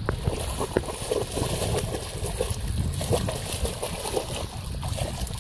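Water sloshing and splashing as a dog swims in a pond, with a steady wind rumble on the microphone.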